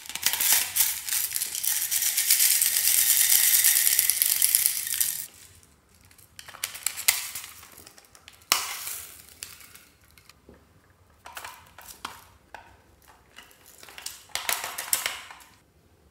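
Hard plastic egg-shaped chick toys being handled and worked: dense, fast clicking and grinding of a plastic mechanism for about five seconds, then several shorter runs of clicking and rattling.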